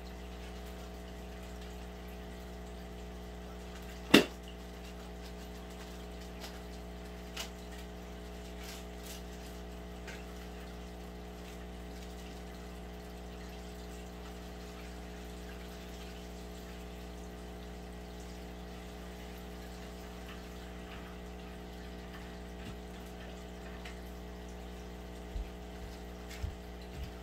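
Aquarium pump running with a steady hum and water moving at the tank's surface. A single sharp click about four seconds in, and a fainter one a few seconds later.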